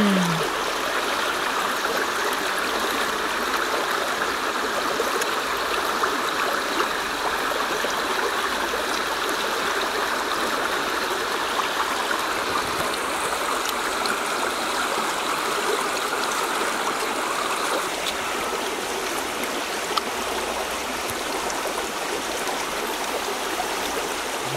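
Steady rushing of running water, like a stream, holding an even level without a break.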